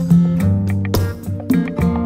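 Background music led by a strummed guitar, its chords changing every half-second or so.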